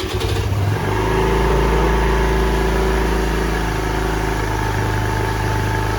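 Honda Navi's 109cc single-cylinder engine just restarted and running cold on choke, building over the first second into a steady fast idle.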